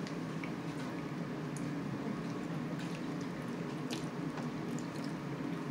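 Quiet eating sounds: chewing and fingers working soft food, with a few faint clicks, over a steady low hum.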